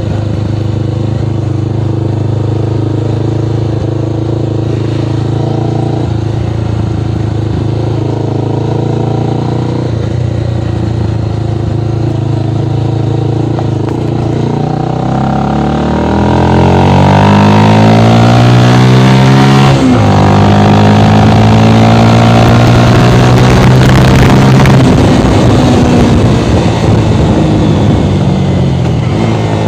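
Honda CB 300's single-cylinder engine through an aftermarket Fortuna mini sport exhaust, running at a steady speed, then accelerating from about halfway: the pitch climbs, breaks for a gear change, climbs again louder, and falls away as the throttle eases off near the end.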